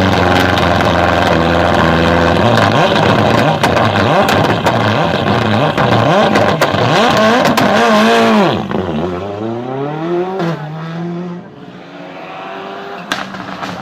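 Supercar engine revving hard up and down again and again, with sharp exhaust pops and crackles. About eight and a half seconds in it turns quieter, and the revs fall, then climb again.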